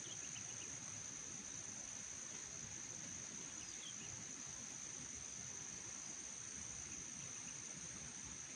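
Steady insect chorus, one unbroken high-pitched trill like crickets, with a few faint chirps near the start and middle.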